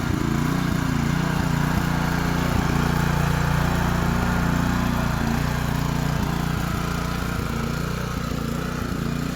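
Small single-cylinder engine of a two-wheel walking tractor running steadily, with scattered short knocks and rattles.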